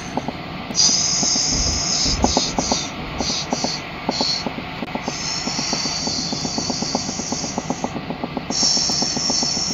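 Stockholm metro CX (C30) train running, heard from inside the carriage: a steady rumble with a fast, regular clatter of wheels over the rails, and a high squeal that comes and goes in stretches, longest from about five to eight seconds in.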